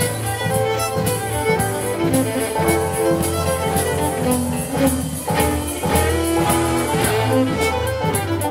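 Contra dance band music: a fiddle plays the tune over keyboard chords, with sustained low notes underneath.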